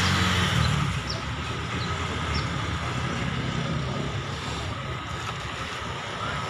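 Steady low rumble of road traffic along a main road, with a few short high chirps over it.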